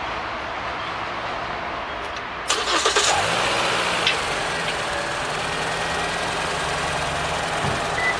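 2013 Toyota Corolla's 1.6-litre Valvematic four-cylinder petrol engine is cranked and catches about two and a half seconds in, then settles into a steady idle. Engine-flush additive has just been added to its oil.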